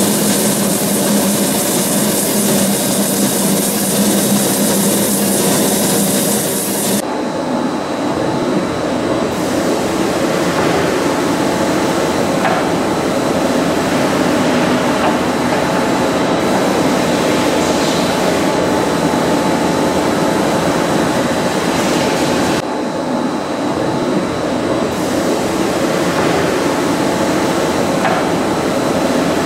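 Barrel sanding machine at work: for about the first seven seconds a pneumatically tensioned sanding belt grinds against the outside of a wooden barrel turning in the machine, giving a loud rasping hiss. Then the hiss drops away, and the machine's motors and the turning barrel carry on with a steady mechanical hum.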